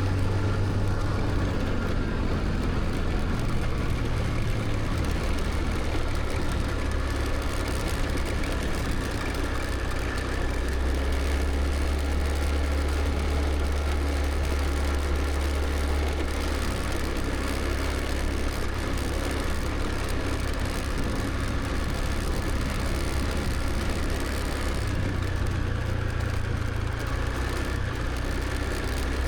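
Scooter engine running steadily on the move, over road and wind noise. Its low hum drops in pitch about a third of the way through and rises again near the end.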